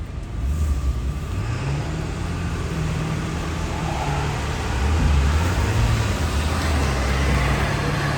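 Road vehicle engine running with road noise, getting louder about half a second in and again about five seconds in.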